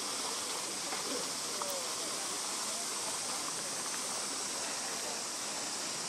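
Steady rushing of shallow river water flowing over a rocky bed, an even hiss with no breaks.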